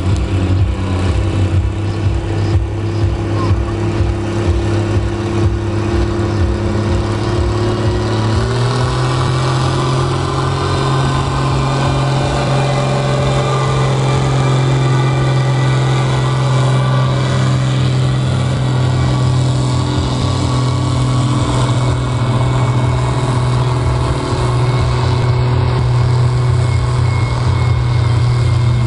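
Valmet farm tractor's diesel engine running hard under full load as it drags a weighted pulling sled. About nine seconds in the engine note steps up to a higher pitch and then holds steady.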